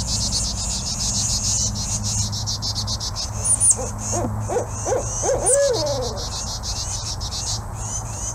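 Barred owl hooting: about four seconds in, a quick run of short rising-and-falling hoots ends in a longer, drawn-down note, over a steady chirring of insects.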